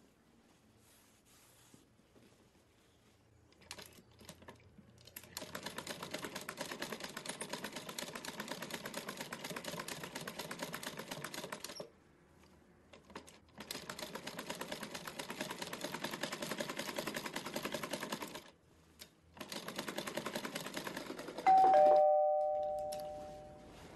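Sewing machine stitching in three spells of rapid, even clicking with short pauses between. About twenty-one seconds in, a doorbell rings once, loud, its two-note chime dying away over a couple of seconds.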